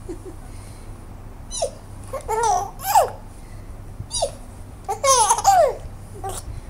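Young baby laughing in short bursts of high-pitched giggles and squeals, each a second or so apart, with the longest run of laughter about five seconds in.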